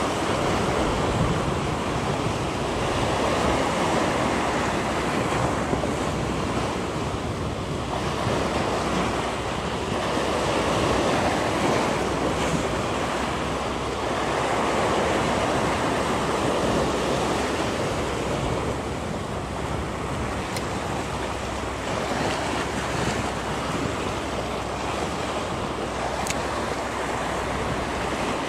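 Sea surf breaking and washing over a rocky shoreline, a continuous rush that swells and ebbs every few seconds.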